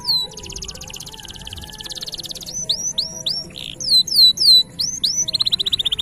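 Domestic canary singing: a long rapid trill, then a run of quick sliding notes, and another rapid trill about five seconds in.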